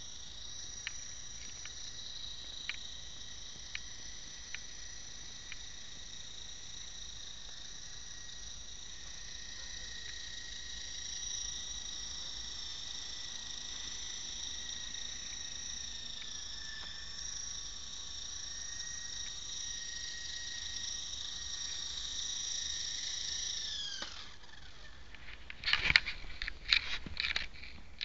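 Electric motor and rotor of a small radio-controlled helicopter whining steadily at a high pitch that wavers slightly. About 24 seconds in, the whine falls in pitch and dies away as the motor spins down, and a burst of sharp clicks and knocks follows.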